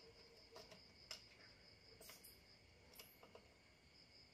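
Near silence: a few faint clicks as a steel vernier caliper is set against a water pump's outlet pipe, over a faint steady high-pitched whine.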